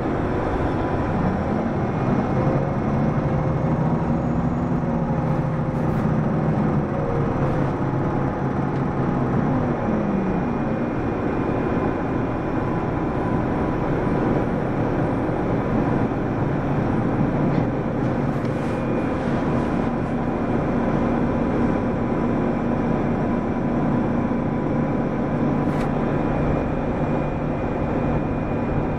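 Mitsubishi Fuso PDG-AA273KAN diesel city bus heard from inside the cabin while under way. The engine note rises and falls through the first ten seconds or so, then settles into steady running over tyre and road noise.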